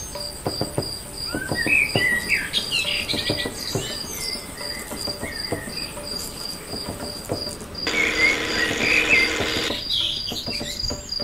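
Insect chirping in an even, unbroken pulse, with scattered bird chirps and light clicks and knocks; about eight seconds in, a hiss rises for roughly two seconds.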